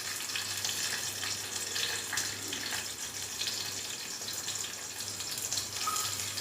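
Chopped ginger and garlic sizzling in hot oil in a small pressure cooker over a high flame: a steady crackling hiss.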